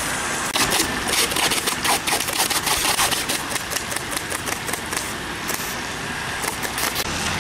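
Rapid, irregular pops of the BB cannons on remote-control model warships firing in a close-range battle, dense at first and thinning out after about five seconds, over a steady hiss.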